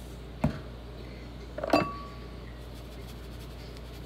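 Two light knocks of hard kitchenware, about a second and a half apart, the second a short ringing clink.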